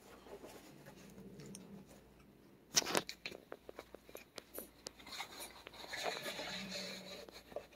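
Quiet handling noises: a sharp knock a little under three seconds in, a run of small light clicks after it, then soft rubbing for the last couple of seconds.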